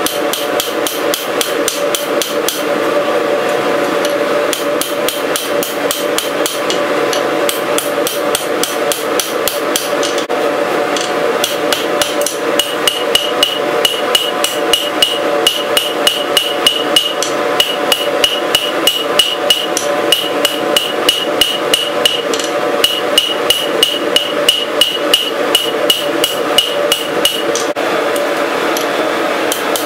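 Hand hammer striking red-hot steel bar stock on an anvil, about two to three blows a second in runs with short pauses, each blow ringing the anvil with a high note, over a steady hum underneath. The hammering stops shortly before the end.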